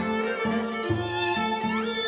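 Contemporary chamber music for yangqin and string quartet: bowed strings hold sustained notes over low notes repeating about twice a second, with a quick rising slide near the end.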